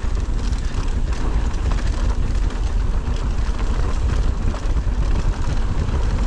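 Wind rushing over the action camera's microphone, with the rolling roar of knobby tyres on dirt and small rattles from a 2023 Ibis Ripmo AF mountain bike riding fast down a straightaway.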